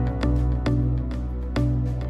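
Background music: steady instrumental notes changing about every half second.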